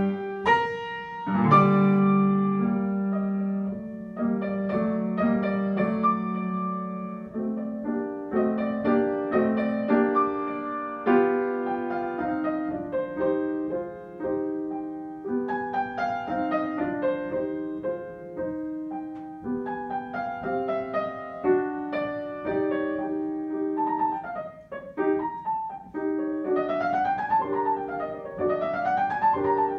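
A grand piano played by two pianists at one keyboard in a duet, with steady chords and melody and fast rising and falling runs in the high notes near the end.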